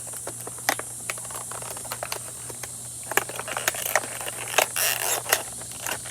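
Packaging being opened by hand: irregular sharp clicks and crackles of plastic and cardboard, with a denser rustle about four and a half seconds in.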